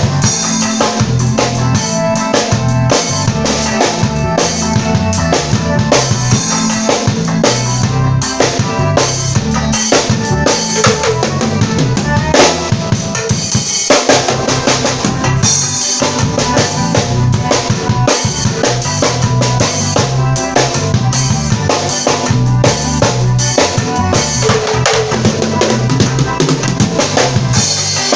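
Drum kit played along to a worship song: bass drum, snare and rimshots in a steady groove over a full musical backing, with a short change in the groove about halfway through.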